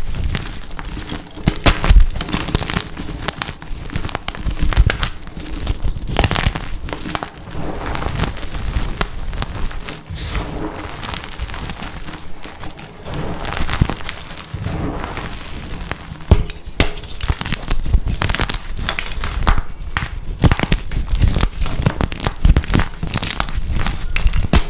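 Blocks of dyed gym chalk being crushed and crumbled, a continuous run of dry crunching and crackling with irregular louder crunches.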